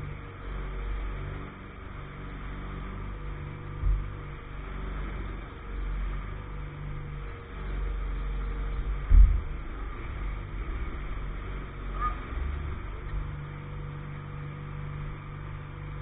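Engine on a pile-driving barge running steadily at a low idle. Two dull thumps break in, one about four seconds in and a louder one about nine seconds in.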